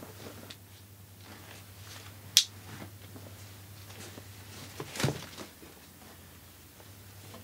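Plastic side-release backpack buckle being cut with pliers: one sharp snap about two and a half seconds in, then a second, duller crack about five seconds in, with light handling of nylon strap and plastic between.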